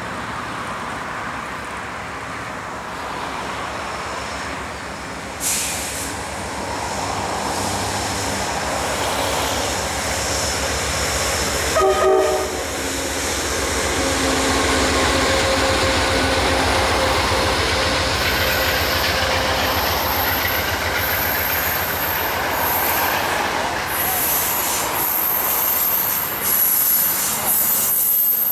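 Amtrak passenger train led by a GE P42DC diesel locomotive passing close by: engine and horn notes as it comes up, then the steady rumble and clatter of stainless-steel coaches rolling past, growing louder as they draw level. A thin, high wheel squeal sets in about two-thirds of the way through.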